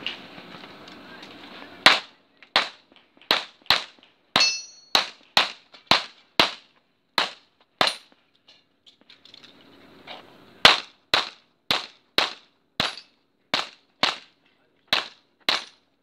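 Pistol shots from a Tanfoglio Stock II, about twenty in all: a string of about eleven shots roughly half a second apart, a pause of about two and a half seconds, then a second string of about nine. A brief metallic ring follows one shot about four and a half seconds in, and a rustling noise comes before the first shot.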